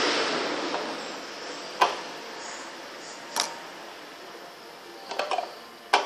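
Handling noise: a rustle that fades out in the first second, then a few sharp knocks and clicks, one about two seconds in, one about three and a half seconds in, and a short cluster near the end.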